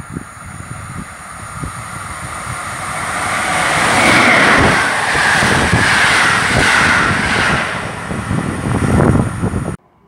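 Passenger train hauled by an EU07 electric locomotive passing at speed: a rising rush of wheels on rail with rapid clattering knocks, loudest as the coaches go by, cutting off abruptly near the end.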